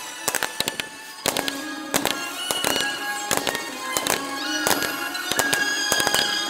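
Aerial fireworks bursting in an irregular string of sharp bangs and crackles, with music playing through the display.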